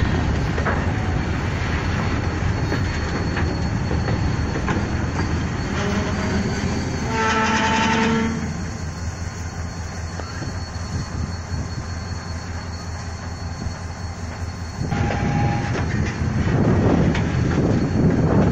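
Freight train moving slowly, its wagons rumbling and clattering over the rails. A diesel locomotive horn sounds one blast of about a second, around seven seconds in, and a shorter, higher tone follows near the end.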